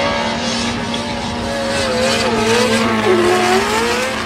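A NASCAR V8-powered GT86 drift car and a Miata drifting door to door, their engines revving up and down as the throttle is worked, over a haze of tyre noise.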